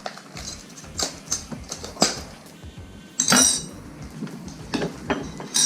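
Cookie cutters being handled and knocked together, giving a series of light clinks and clatters. The loudest clink comes about three seconds in and rings briefly.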